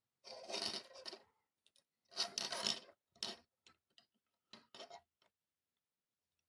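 Short bursts of rubbing and scraping with small clicks between them, from hands and tools working over the bench during circuit-board assembly: two longer scrapes of about a second each, then shorter ones.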